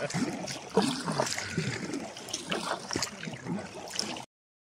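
River water splashing and lapping around inflatable kayaks as they are paddled, with irregular small splashes. The sound cuts off suddenly near the end.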